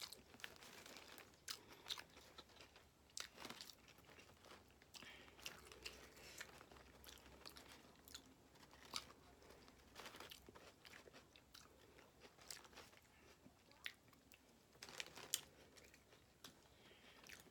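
Faint chewing and biting of food close to the microphone, with scattered soft crunches and wet mouth clicks.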